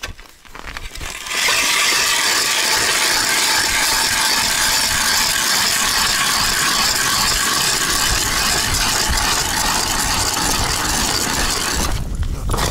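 Hand-cranked ice auger's steel blades cutting into the ice: a loud, steady grinding scrape that starts about a second in and stops abruptly near the end.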